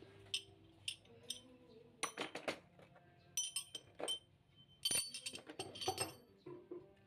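Steel sockets, extension bars and a speeder handle from a socket set clinking against each other and the metal case as they are handled and set into their slots. The sound comes as scattered single clinks and short rattling clusters, with the loudest about five seconds in.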